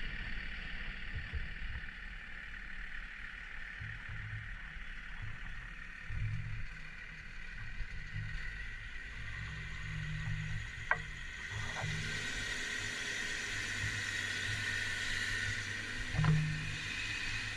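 Heavy earthmoving machinery's diesel engine running with a low steady rumble, with a couple of sharp knocks, one about eleven seconds in and a louder one near the end.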